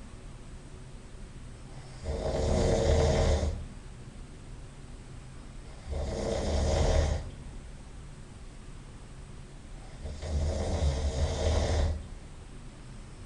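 A person snoring loudly in sleep: three long snores, each lasting more than a second, coming about every four seconds with quieter breathing between them.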